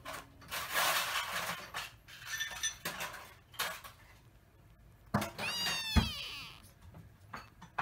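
A young tabby kitten gives one short meow about five and a half seconds in, amid rustling and scattered clicks, with a sharp knock just as the meow ends.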